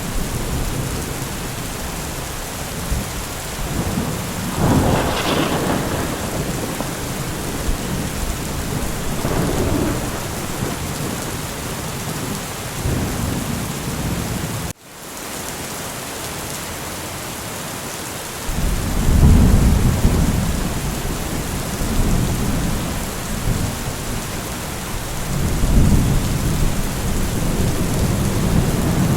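Steady heavy rain with low rolls of thunder rumbling up several times. The sound cuts out for an instant about halfway, then comes back.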